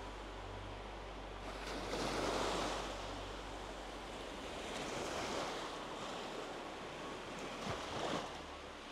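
Small surf breaking and washing up a sandy beach, swelling in a slow rhythm about every three seconds.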